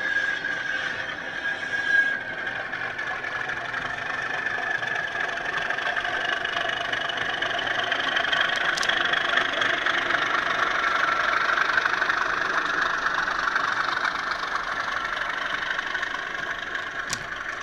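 Class 37 diesel engine sound, a Legomanbiffo sound file played by DCC sound decoders through small EM1 speakers in model locomotives. The engine runs steadily and grows louder around the middle as the locos pass. A high whistle rises in pitch from about six seconds in.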